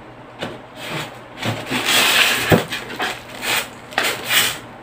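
Cardboard box flaps and plastic wrapping rustling and crinkling as small speakers are pulled out of their packaging, with a sharp knock about two and a half seconds in.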